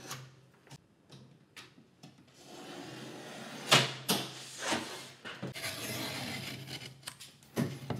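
Plasterboard being cut with a utility knife along a steel rule: scraping strokes of the blade scoring the board, with a few sharp knocks a few seconds in and again near the end as the scored board is handled and snapped.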